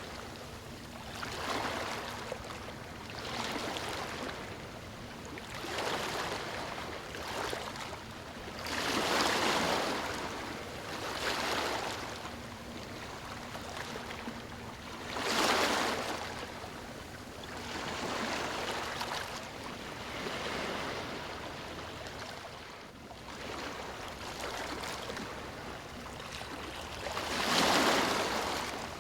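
Ocean waves breaking on a beach, each wave a swell of rushing surf that washes in and fades, several in a row with the biggest breaks about nine, fifteen and twenty-seven seconds in.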